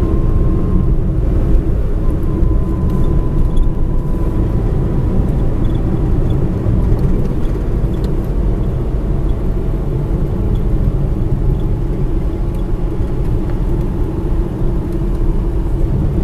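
Cabin noise of a manual-transmission car driving along a road: a steady low rumble of engine and tyres.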